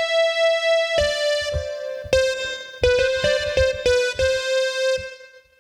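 MIDIPLUS MiniEngine sound module playing its square wave lead synth patch: a short single-note melody, the first note held about a second, then a run of shorter notes, dying away near the end. A soft low knock sounds at the start of each note.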